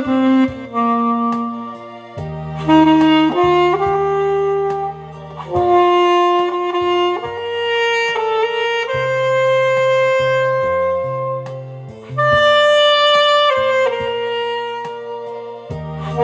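Alto saxophone playing a slow, lyrical melody in phrases of long held notes, with a long sustained note in the middle and short breaths between phrases.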